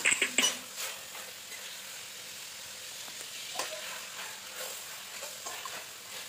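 Pieces of chicken breast sizzling in a stainless steel pan with a steady hiss while being stirred with a metal ladle, which clinks and scrapes against the pan several times in the first second, then only lightly now and then.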